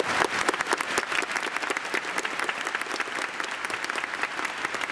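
Football stadium crowd applauding, a dense patter of many hands clapping, loudest in the first second.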